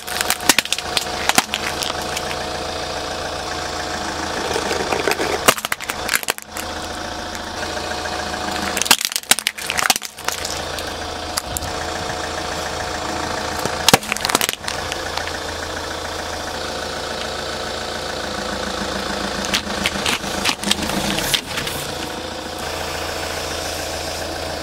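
An Opel car's engine idling steadily while its tyre rolls over objects. Sharp cracks and crunches come several times as items such as a picture frame and a drinks can are crushed under the wheel.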